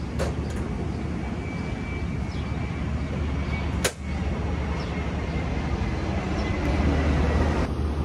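Packaged rooftop HVAC unit running fan-only with the cooling switched off, its blower giving a steady low hum with a faint high whine over it. A single sharp click comes about four seconds in.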